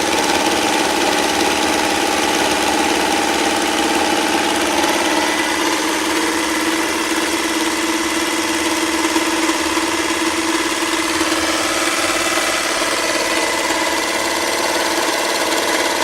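Jigsaw mounted under a work table running steadily, its motor and blade cutting with a constant hum whose pitch shifts slightly about five seconds in.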